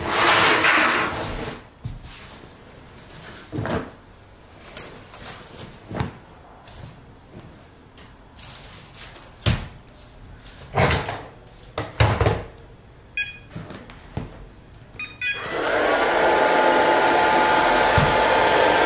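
Plastic laundry tub and wicker basket being handled, with scattered knocks and rustles. About fifteen seconds in, a robot vacuum gives short beeps, and then its motor and brushes start and run steadily with a whine.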